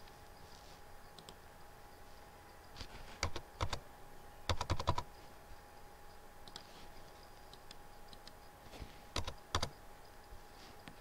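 Computer keyboard keys and mouse clicks, in short groups: a few about three seconds in, a quick run of several near five seconds, and two more near nine seconds, over a faint steady hum.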